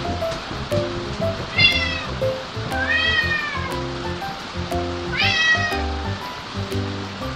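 Domestic cat meowing three times, each meow short and rising then falling in pitch, over background music.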